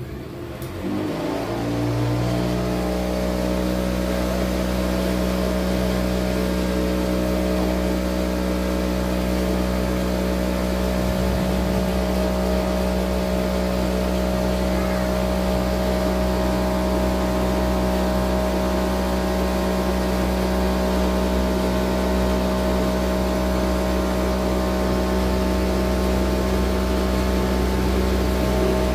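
Home-built cotton candy machine's electric motor spinning its brass-and-Teflon spinner head. It speeds up over the first two seconds, then runs at a steady speed with an even hum.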